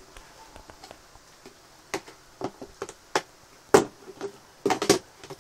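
Hard plastic parts of a toy baby carriage knocking and clicking together as they are handled and fitted: a string of sharp knocks, the loudest a little after the middle, with a quick run of clicks near the end.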